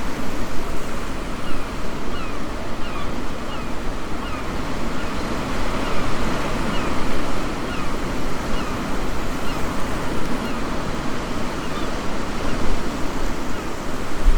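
Waves washing onto a sandy Baltic Sea beach, a steady rush of surf with wind buffeting the microphone. A faint series of short high chirps runs through the middle.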